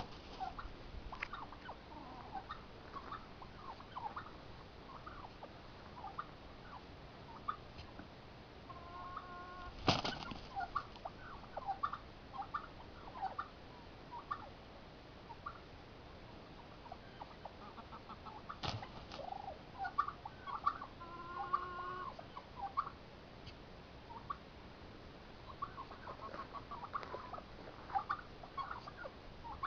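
Poultry, chickens and a turkey, making many short scattered clucks and chirps. There are two short runs of quicker, clearer calls, about 9 and 21 seconds in. Two sharp knocks stand out, about 10 and 19 seconds in.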